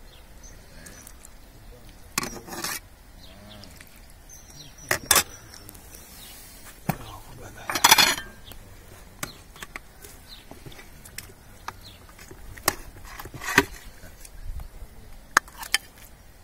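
A metal ladle and spoons clinking and scraping against an aluminium cooking pot and porcelain bowls as food is served, in scattered sharp clinks, with a louder clatter of crockery about eight seconds in.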